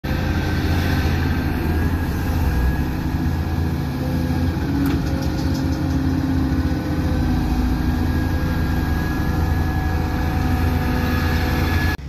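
Diesel engine of heavy earth-moving machinery running steadily at a constant speed, with a deep rumble and a faint steady whine above it.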